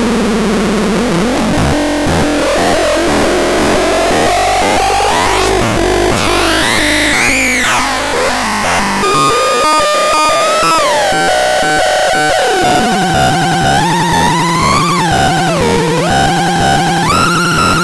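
Synthesizer making electronic tones that glide up and down in pitch over a noisy, buzzing haze. About nine seconds in, a steady held tone appears, drops to a lower steady tone, and is then joined by a low drone while rising and falling sweeps continue above it.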